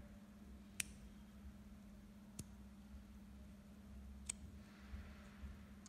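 Three small, sharp clicks, spaced about one and a half to two seconds apart, from fingers working the mount of a laser sight and LED light combo, with faint rustling of fingers on the housing over a steady faint hum.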